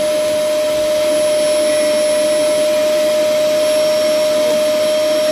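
Vacuum cleaner running steadily with a constant pitched whine, its hose nozzle pressed to the valve of a vacuum storage bag full of clothes, drawing the air out to compress the bag.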